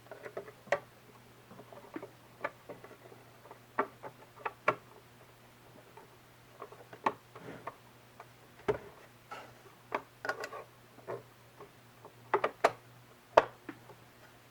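Irregular clicks and light taps of small parts being handled and fitted back onto a Singer Heavy Duty sewing machine as it is reassembled.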